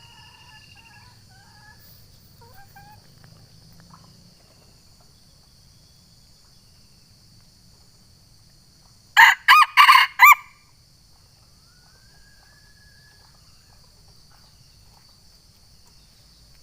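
Junglefowl rooster crowing once, a short loud crow of a few rapid notes about nine seconds in: a challenge call to a rival cock. A steady high insect drone and faint calls of other birds sit behind it.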